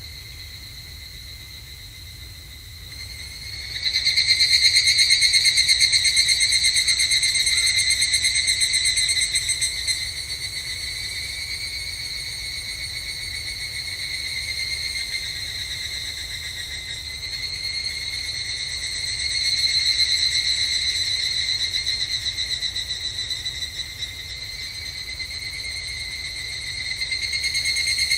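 Evening cicadas (higurashi) calling: a high, rapidly pulsing ringing chorus that rises sharply about three and a half seconds in. It eases after a few seconds and swells again about twenty seconds in and near the end.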